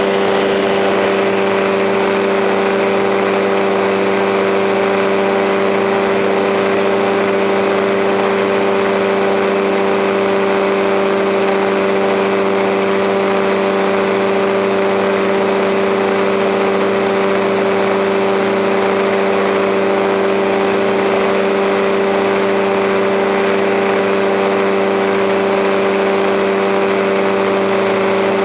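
Drone's propellers and motors humming at a steady pitch while it hovers or cruises, with a strong, unchanging drone tone and higher overtones and no change in level.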